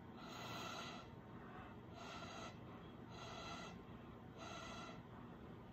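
Faint, regular breathing close to the microphone: a soft breath roughly every second and a half.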